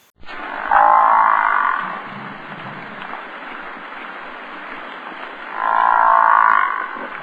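An animal calls twice, each call drawn out for about a second, with the second call coming about five seconds after the first, over a steady background hiss.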